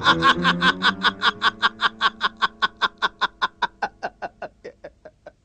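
A man's long stage laugh, a rapid even run of 'ha-ha' pulses at about five a second that slowly spreads out and fades away to nothing near the end.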